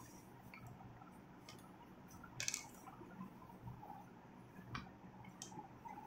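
Faint handling noise from a paper notebook being moved by hand: a few short rustles and taps, the loudest about two and a half seconds in.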